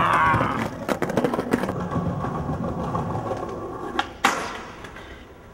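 Skateboard wheels rolling over paving stones, with scattered clicks from the joints, then a sharp crack of the board about four seconds in as the skater pops an ollie over the bollards.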